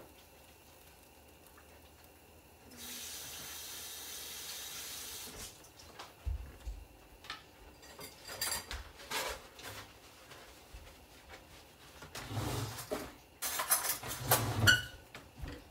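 Kitchen tap running for about two and a half seconds as oily hands are washed, then scattered knocks and clatter, loudest near the end.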